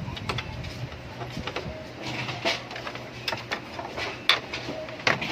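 Scattered clicks and light knocks from handling the parts of a Brother DCP-L2540DW printer-scanner under repair, over a steady low hum. The clicks come more often from about two seconds in.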